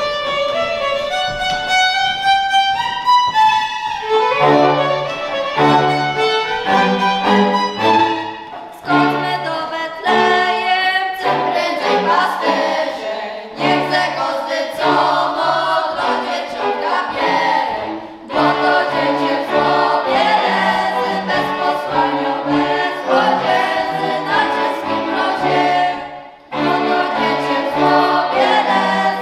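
Góral highlander folk music: a group of voices singing with fiddle accompaniment over an evenly pulsing bass. A lone fiddle line climbs for the first few seconds before the voices and bass come in.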